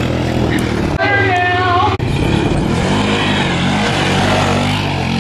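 Small engines running with hard cuts between clips: first a golf cart's engine running steadily, then about two seconds in a Honda TRX300EX quad's single-cylinder engine revving up and down as it slides through a dirt turn.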